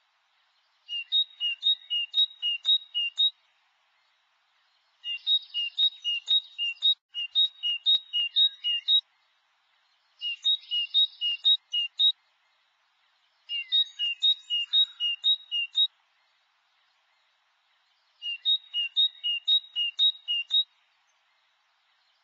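Great tit singing: about six bouts of a two-note phrase, a higher and a lower whistled note alternating, repeated four or five times in each bout, with short pauses between bouts.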